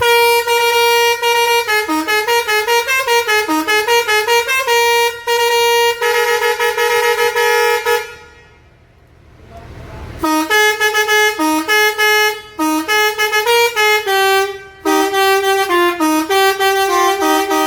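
Six-trumpet, 30-tone telolet air horn set playing a tune, stepping quickly from note to note. It breaks off for about two seconds partway through, then plays another run of notes.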